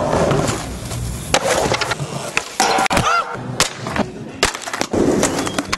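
Skateboard wheels rolling on concrete, broken by a series of sharp clacks of the board striking the ground and ledge.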